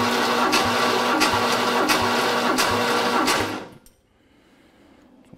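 Starter motor cranking a Ford 302 V8 with its spark plugs out for a dry compression test: a steady churn with an even beat about twice a second, stopping a little under four seconds in.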